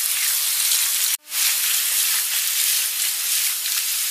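Sliced mushrooms sizzling steadily in a frying pan, with a short break about a second in.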